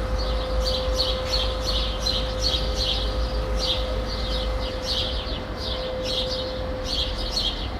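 Small songbirds chirping rapidly and repeatedly over a steady low rumble of distant city traffic, with a faint steady hum running underneath.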